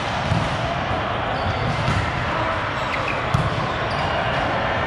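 A few dull thumps of a volleyball being played, the clearest near the start and about three and a half seconds in, over the steady din of voices and activity in a large gym hall.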